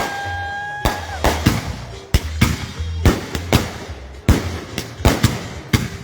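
Consumer firework cakes firing in a rapid barrage: a string of sharp bangs and pops, several a second, with a steady whistle through the first second.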